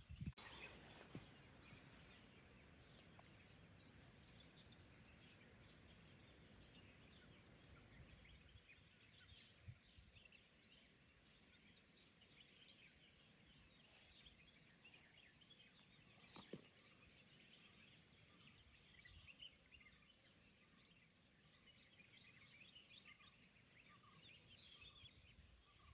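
Faint outdoor nature ambience: a high, thin chirp repeating evenly about every two-thirds of a second, with scattered small calls and a couple of brief knocks.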